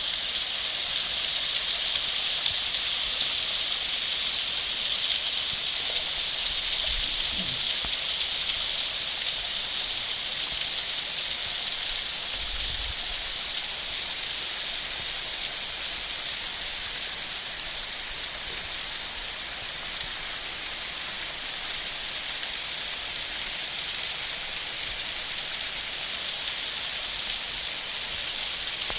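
Small waterfall, water falling and splashing onto rock in a steady, even rush, with a couple of brief low bumps about seven and thirteen seconds in.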